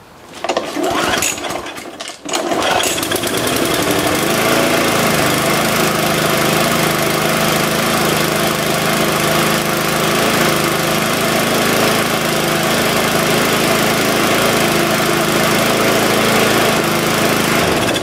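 Mountfield rotary lawn mower's four-stroke petrol engine pull-started: it catches within the first second, dips briefly about two seconds in, then runs steadily. It stops at the very end.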